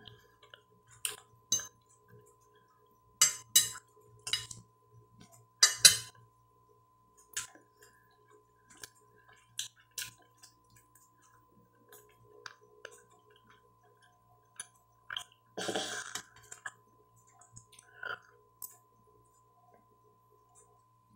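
Close-up eating sounds of roast chicken eaten by hand: scattered wet mouth clicks and smacks from chewing and finger-licking, loudest around three to six seconds in, with a longer noisy stretch about fifteen seconds in. A faint steady tone runs underneath.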